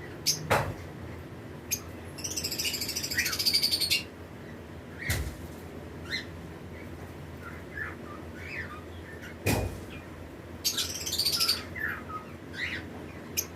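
Lovebirds in a colony chirping: scattered short high chirps, with two longer buzzy chattering bursts, about two seconds in and again near the end. Three sharp knocks cut through, near the start, about five seconds in and about nine and a half seconds in.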